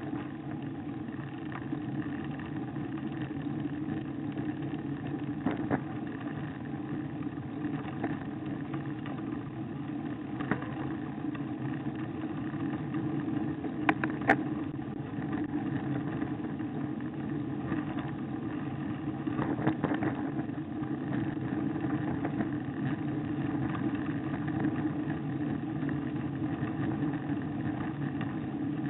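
Steady low rumble of road vibration and wind on a handlebar-mounted camera as a bicycle climbs over rough, broken asphalt, with a few sharp knocks from bumps, the loudest about halfway through.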